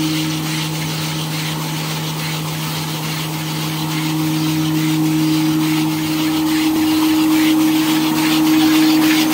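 A 3-line V-fold hand towel paper folding machine running, with the steady two-note hum of its vacuum blower over a light mechanical clatter.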